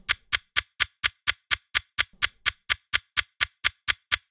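Clock-like ticking sound effect: short, sharp, evenly spaced ticks, about four a second.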